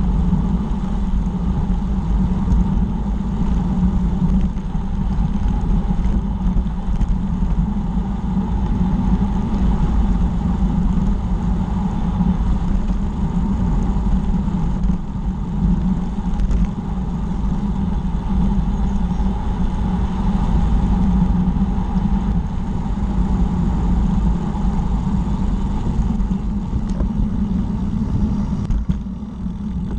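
Steady wind rush on a bike-mounted camera's microphone, with low rumble from the tyres rolling on tarmac as the bicycle moves along at speed. The noise eases briefly near the end.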